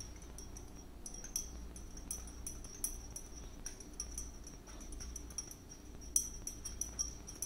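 A spoon stirring water in a drinking glass, clinking against the glass in irregular runs of light taps, each with a short high ring.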